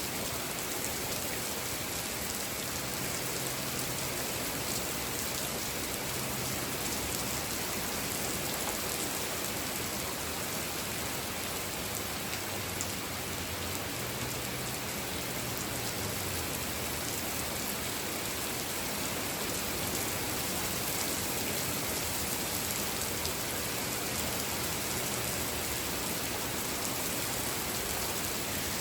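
Steady, even hiss of noise with no speech or alert tones.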